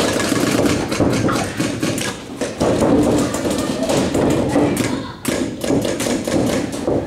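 Paintball markers firing in rapid strings, many sharp shots a second overlapping, with a brief lull a little past five seconds in.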